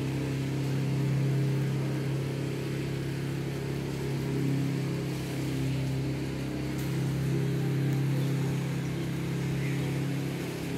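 Steady low machine hum at one unchanging pitch, like an engine running at idle.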